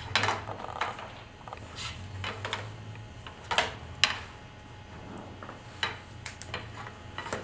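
Scattered clicks and knocks of a metal tire wrench being picked up and handled, with two sharper clanks about halfway through, over a low steady hum.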